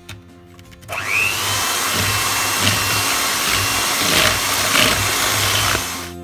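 Electric hand mixer starting up about a second in with a short rising whine, then running steadily as its beaters whisk raw eggs and sugar in a bowl; it stops near the end.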